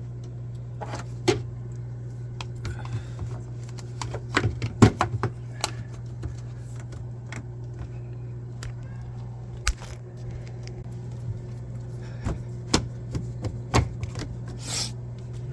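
Plastic front cover of a refrigerator being fitted back into place: scattered clicks and knocks, with a cluster about five seconds in, over a steady low hum.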